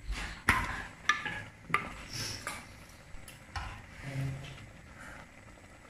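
Metal ladle clinking and scraping against an aluminium pot while stirring ground coconut paste into a green peas curry. Three sharp clinks in the first two seconds, then softer knocks and scraping.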